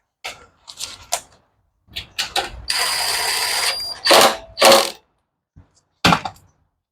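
Workshop handling of tools and small engine parts: a run of short clicks and knocks, a hiss about a second long in the middle, then a few heavier knocks.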